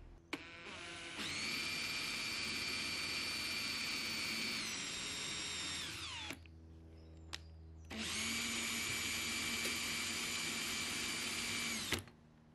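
Makita cordless drill spinning a threaded rod through a nut inside a PVC pipe, a home-made lead-screw model of a linear actuator, drawing the pipe in and then driving it back out. The drill runs in two spells with a steady whine. The first lasts about six seconds and dips slightly in pitch before winding down. After a pause with a single click, the second runs about four seconds and stops abruptly.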